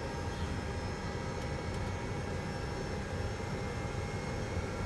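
Cockpit noise of a Boeing 737-200 at takeoff power: a steady deep rush from its Pratt & Whitney JT8D turbofans and the airflow, with several steady whining tones over it.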